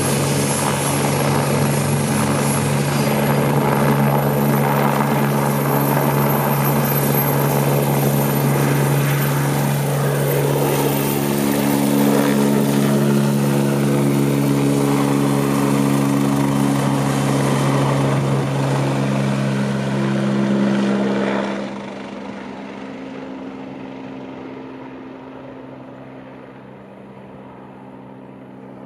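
AgustaWestland A109 twin-turbine medical helicopter at takeoff power, with steady low rotor tones, a high turbine whine and heavy rotor noise as it lifts off and climbs. About three-quarters of the way through the sound drops suddenly, then fades and dulls as the helicopter flies off into the distance.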